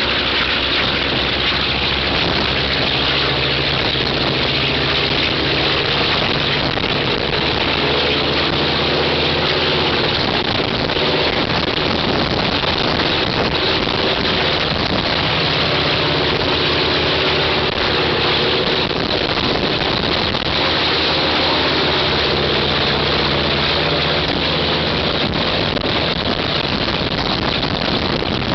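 Right-hand engine of an Ilyushin Il-14T running steadily in a ground run, a loud continuous drone. The engine is a Shvetsov ASh-82T fourteen-cylinder radial.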